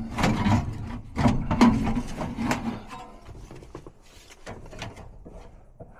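Sheet-metal furnace blower parts being handled and slid back out: a run of metal knocks and scrapes over a low hum that stops about three seconds in, then lighter clicks.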